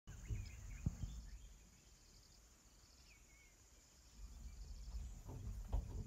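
Steady high insect drone with a few short bird chirps, and a few dull low thumps about a second in and again near the end.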